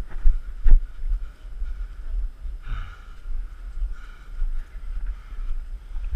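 Wind buffeting the microphone, a gusty low rumble that rises and falls, with a brief thump a little under a second in.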